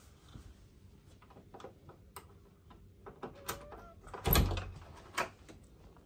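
A run of light clicks and knocks, with a brief squeak a little after three seconds in and the loudest knock, a thump, a little after four seconds.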